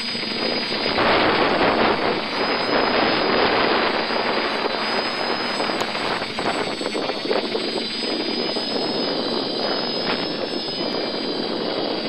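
Quadcopter's four brushless motors and carbon propellers in flight, a steady rushing noise with fluttering wind buffeting, picked up by the onboard FPV camera's audio.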